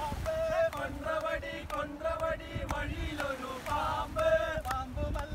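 A group of men singing a Malayalam song together, with steady hand claps about twice a second keeping the beat.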